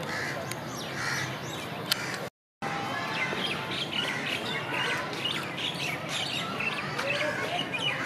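Many birds chirping and calling together, a dense chatter of short high calls, cut off by a brief silent break a little over two seconds in.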